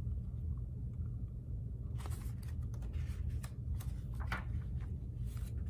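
Pages of a picture book being handled and turned: a series of short paper rustles and flicks from about two seconds in, over a steady low hum.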